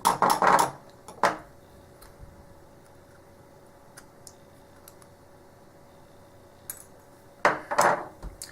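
Small metal clinks and clatter of a tool and lock parts as the retaining clip is worked off a disassembled American A1100 padlock: a cluster of clinks at the start, a few faint ticks in the middle, and another cluster near the end.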